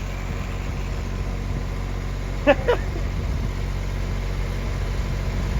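A steady, low engine hum, as of an engine idling. About two and a half seconds in there are two short pitched chirps.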